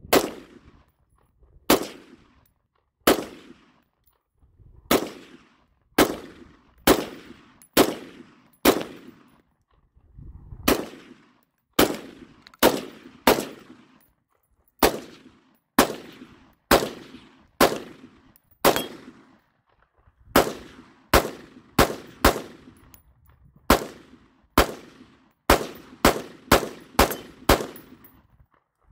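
AR-15 firing single semi-automatic shots, nearly thirty of them, mostly one to two seconds apart and coming faster, about two a second, near the end. Each sharp crack has a short echo tail.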